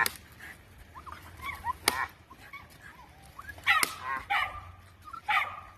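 A dog giving short, excited yips and whines in a few separate bursts, the loudest about four seconds in. A single sharp tap comes about two seconds in.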